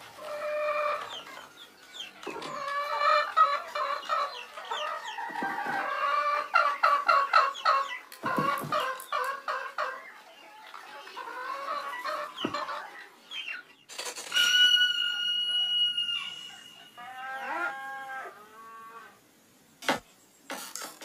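Hens clucking, many birds at once in quick, overlapping calls. About two-thirds of the way in comes one long held call, followed by a sharp knock near the end.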